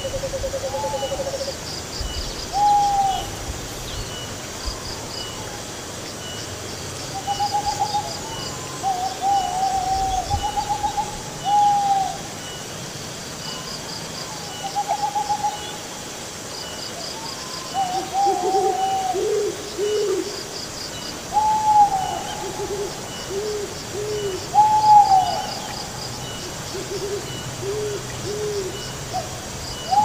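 Owls hooting again and again over the steady rush of a shallow stream running over rocks: short falling hoots and quavering trills, joined about halfway by a lower call repeated in runs of three. Faint insect chirping sits underneath.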